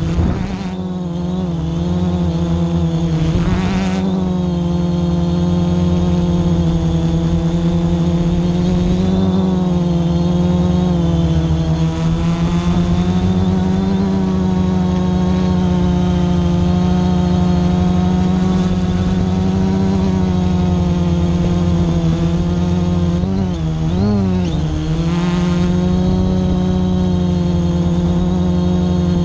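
Multirotor drone's electric motors and propellers whining steadily at one pitch, heard close up from the drone's own camera. Late on, the pitch briefly dips and wobbles as the motors change speed.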